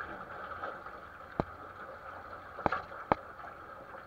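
Steady rush of water along the hull of a 470 sailing dinghy under way, with three sharp knocks from the boat: one about a second and a half in and two close together later on.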